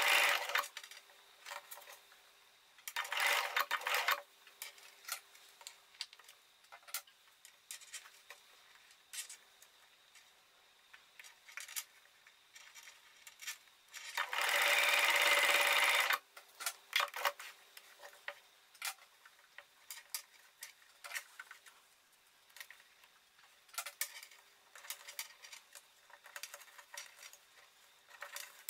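Domestic electric sewing machine stitching in short runs: briefly at the start, again about three seconds in, and a longer steady run of about two seconds midway, with light clicks between the runs.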